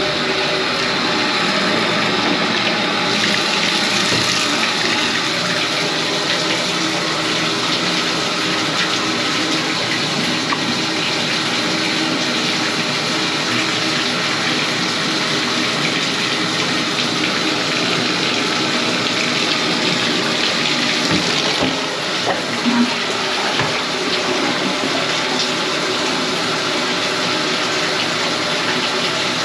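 Water running steadily in a continuous flow, a little brighter from about three seconds in, with a few small knocks near the end.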